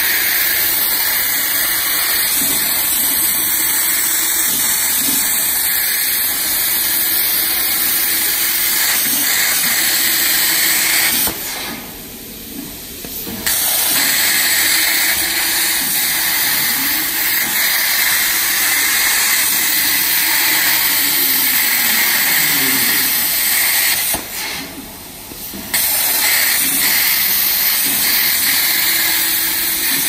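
63-amp air plasma torch of a CNC gantry plasma cutter cutting sheet metal: a loud, steady hiss of the arc. It cuts off twice for a second or two, about eleven seconds in and again about twenty-four seconds in, when the arc switches off between cuts.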